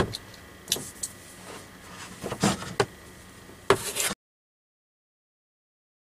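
Handling noise of flexible water lines being worked inside a wooden under-bed compartment: a sharp click, then scattered knocks, taps and rustles. About four seconds in, the sound cuts out to dead silence.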